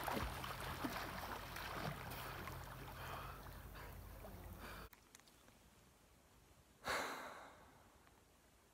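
Lake water moving against a rocky shore, with wind rumbling on the microphone, cuts off abruptly about five seconds in. Near the end a person lets out one loud breath, like a sigh, that fades over about a second.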